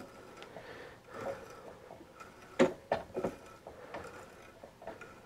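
A hand tap turned by a T-handle tap wrench, cutting 1/4-28 threads into a drilled hole in a tie rod end: faint scraping with a few soft clicks, the clearest about two and a half seconds in.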